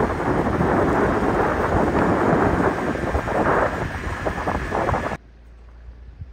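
Loud, fluctuating rumbling noise that cuts off abruptly about five seconds in.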